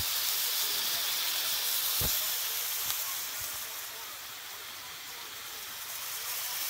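Steaks sizzling on a hot Blackstone flat-top gas griddle: a steady, high-pitched hiss, a little softer midway and swelling again near the end, with one soft knock about two seconds in.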